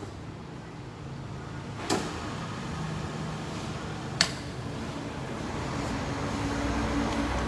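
Yoshida YD3-65N drilling machine running smoothly, its spindle and gearing giving a steady hum that grows a little louder toward the end. Two sharp clicks come about two and four seconds in.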